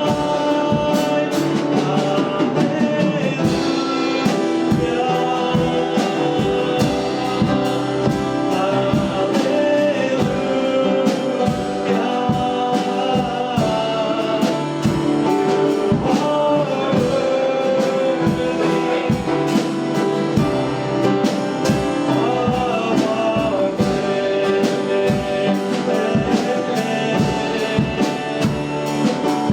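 Worship song: voices singing over a band with a drum kit keeping a steady beat.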